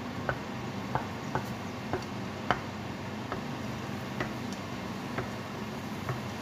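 Wooden spatula knocking against the side of a non-stick frying pan as the edges of a cooking omelette are pushed toward the middle: irregular light taps about once a second, the loudest about two and a half seconds in, over a steady low hum.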